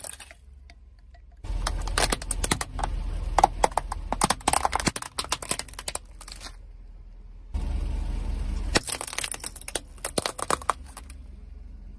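Crunching and cracking as objects are crushed under a car's tyre, over a low rumble: two spells of rapid snapping, one about a second and a half in and one past the middle, each starting suddenly.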